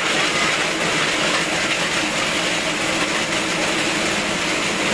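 Plastic-waste crusher (shredder) running with a steady, loud mechanical noise, fed with inorganic waste such as plastic.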